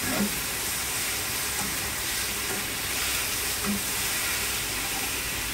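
Squid pieces stir-frying in hot oil with crushed garlic and black pepper: a steady sizzle, with a spatula stirring and scraping around the frying pan.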